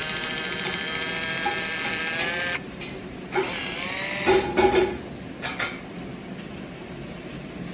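Battery-operated electric can opener motor running around a can with a steady whine, which cuts off about two and a half seconds in. A few clicks and knocks follow.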